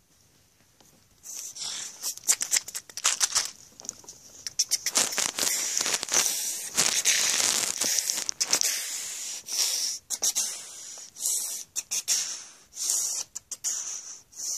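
Handling noise: plush toy fur and fabric rustling and scraping against the phone as it is moved about by hand. It comes as an uneven string of short scratchy bursts and clicks.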